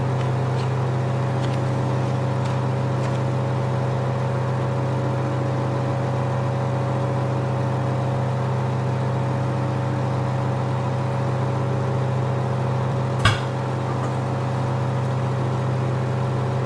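Microwave oven running with a steady electrical hum, broken once about thirteen seconds in by a single sharp pop.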